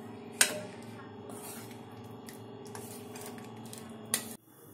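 A ladle stirring soup in a cooking pot, knocking sharply against the pot about half a second in and again near the end, over a steady low background hum that cuts off just after the second knock.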